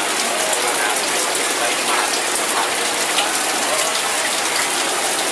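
Steady sizzling and crackling of seafood frying in hot oil.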